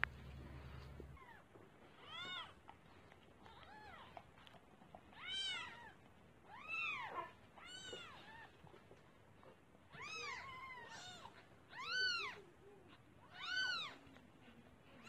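Kittens mewing: about ten short, high-pitched mews, each rising and falling in pitch, spaced a second or so apart.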